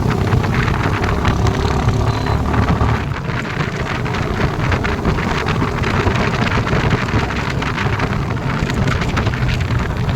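Royal Enfield Bullet's single-cylinder engine running with its exhaust thumping steadily; from about three seconds in the sound turns rougher and noisier.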